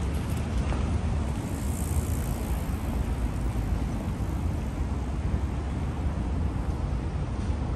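City street noise: steady road traffic with a low rumble that never lets up.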